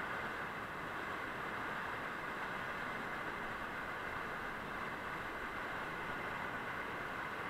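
Whitewater rapid rushing steadily, an even wash of water noise that never lets up.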